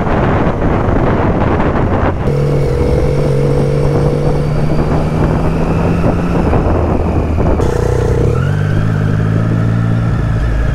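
Wind rushing over the helmet microphone, then the steady exhaust note of a Triumph Street Triple 675's inline three-cylinder engine while riding at a constant pace. The engine tone drops a little in pitch about eight seconds in.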